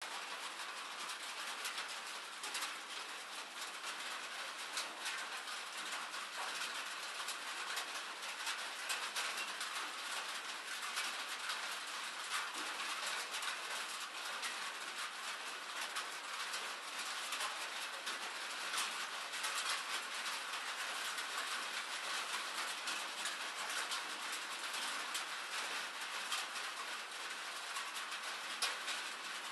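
Steady rain falling, a dense, even patter of countless drops.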